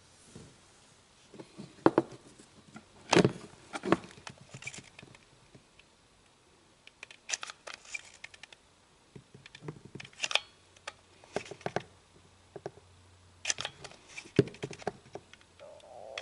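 Scattered clicks, taps and light knocks of something being handled at close range, irregular and spread out, a few of them sharper and louder than the rest.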